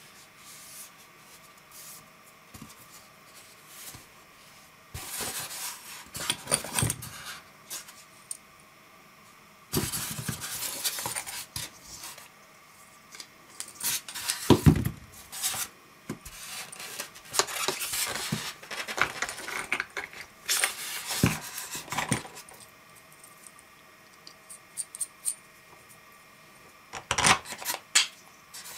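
Unboxing handling noise: a plastic LED laser projector, its plastic mounting stake and power adapter lifted, turned and set down in a polystyrene foam packing tray. Irregular bursts of scraping, rubbing and sharp plastic clicks, after a few quiet seconds at the start.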